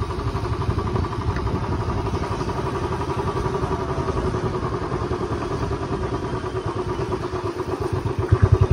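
Motorcycle engine running as the bike is ridden, an even pulsing beat, getting louder and more thumping near the end.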